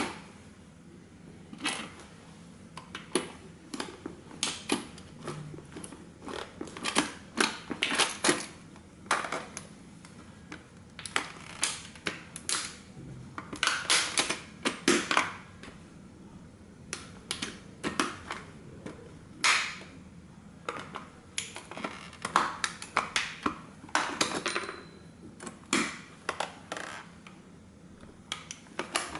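Tin toy car's thin sheet metal crackling, clicking and popping as heavy boots press down and rock on it, crushing it slowly. The sharp cracks come in irregular clusters, with the loudest around the middle and near the end.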